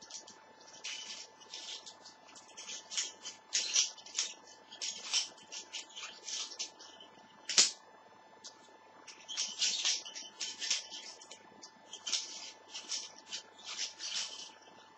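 Balisong (butterfly knife) being flipped: repeated bursts of light metallic clicking and rattling as the handles swing around the pivots and knock together, with one sharper clack a little past halfway.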